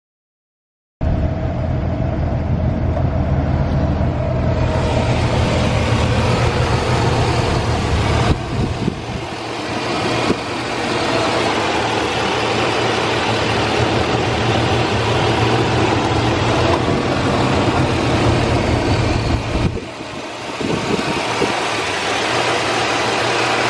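Chevrolet Silverado 2500HD's 6.0-litre gas V8 idling steadily, heard close up in the open engine bay, starting about a second in. The level dips briefly twice.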